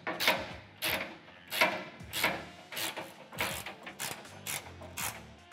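Hand socket ratchet clicking in about a dozen quick bursts, roughly two a second, as its handle is swung back and forth to tighten a bolt while a box wrench holds the nut.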